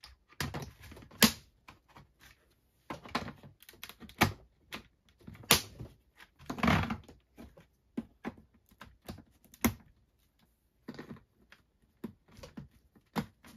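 Hard plastic parts of a Mattel Jurassic World Legacy Collection Mamenchisaurus toy figure being handled and snapped together: irregular clicks and knocks, a few of them sharper snaps, with brief rubbing between.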